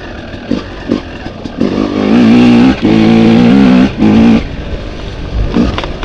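Yamaha dirt bike engine heard from the rider's camera: a few short throttle blips, then held open loud for about two and a half seconds with a couple of brief chops, then backed off.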